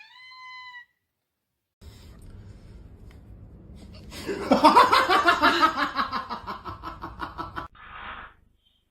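A person laughing hard in quick rhythmic bursts for about three seconds, starting about four seconds in.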